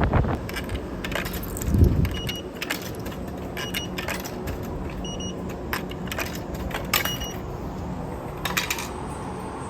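Objects being handled, with scattered clicks and clinks, and about four short electronic beeps a second or so apart.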